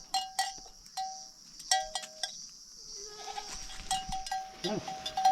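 A livestock bell, such as on a goat, clanking irregularly as the animal moves: about a dozen short ringing strikes, coming faster in the second half.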